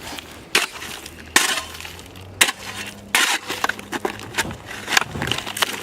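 Small snow shovel chipping at a layer of solid ice, with repeated sharp strikes about once a second and ice cracking and breaking up.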